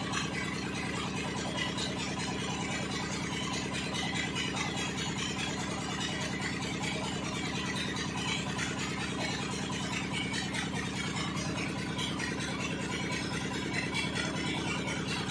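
An engine idling steadily, with an even, rapid pulsing and a constant hum that do not change.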